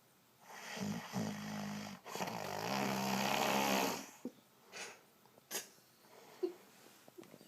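A man snoring in his sleep: two rattling snores back to back, the second longer and louder, followed by a few faint short snorts and clicks.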